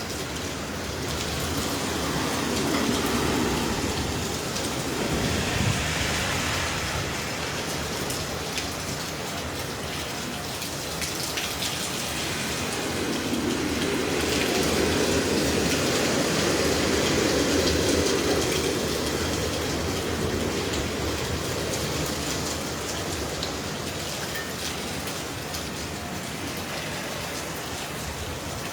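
Heavy hurricane rain pouring down in a steady rush that swells louder twice and eases again.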